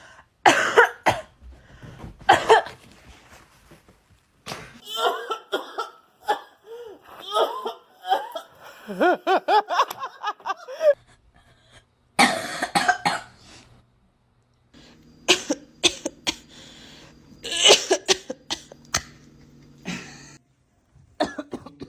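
A person coughing in repeated harsh fits. About five to eleven seconds in, the coughs give way to a run of short pitched vocal sounds that bend up and down.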